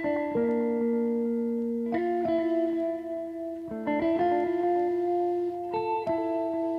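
Background music: slow guitar chords, each held and ringing, changing every second or two.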